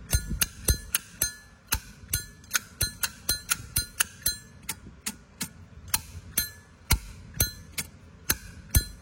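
Brass Zippo lighter cases handled and clicked, an irregular run of sharp metallic clicks and clinks, about three a second, each with a short ring.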